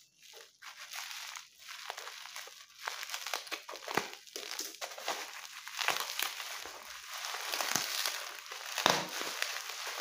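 Plastic bubble wrap crinkling and rustling as hands handle and unwrap a parcel, with many small crackles.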